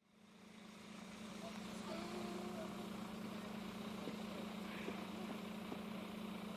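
A steady low mechanical hum, like an engine idling, fading in at the start and then holding steady, with a few faint brief higher sounds over it.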